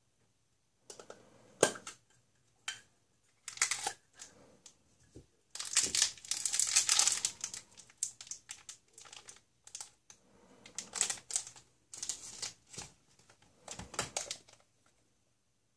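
Crinkling of a small clear plastic toy packet being handled, with clicks and knocks of hard plastic toys and capsules. The crinkling is loudest from about six to seven and a half seconds in.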